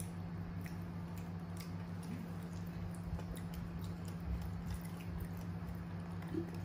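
Young macaques eating mashed food by hand from bamboo trays: faint soft squishes and scattered small clicks of fingers and mouths in the food, over a steady low hum.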